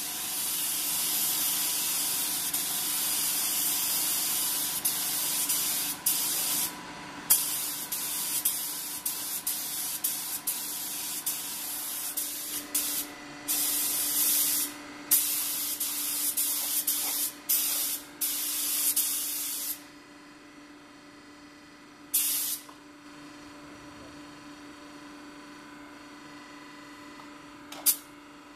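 Compressed air hissing from a DeVilbiss GTi Pro spray gun as 2-pack blue paint is sprayed, in long trigger pulls broken by short pauses. About two-thirds of the way through the spraying stops, leaving a steady hum, with one more short burst of spray soon after.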